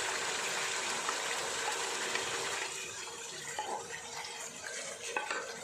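Pressure-cooked chicken curry with its cooking liquid being poured from the cooker into a pot: a steady pouring, splashing rush that eases off about halfway through, followed by a few light knocks of the vessels.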